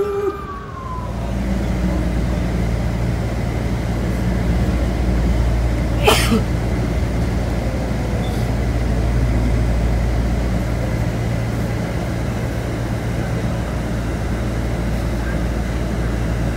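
Steady low engine and road rumble inside a moving bus. A brief sharp noise cuts through about six seconds in.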